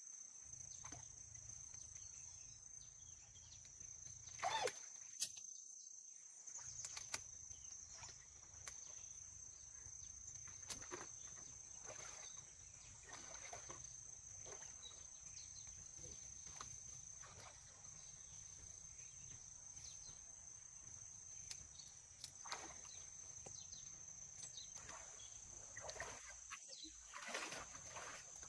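Faint outdoor ambience: a steady high-pitched insect drone, with scattered small clicks and rustles.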